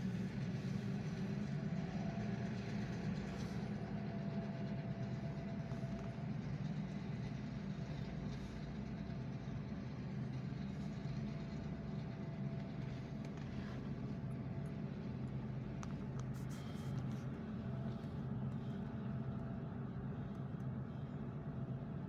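An engine running steadily: an even, low hum with a faint higher tone above it.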